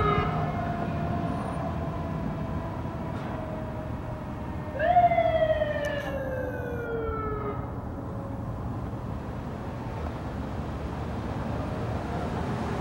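Emergency vehicle siren. It is falling in pitch at the start, then about five seconds in it gives one short burst that jumps up sharply and winds down slowly over a couple of seconds, over a steady rumble of engine and road noise.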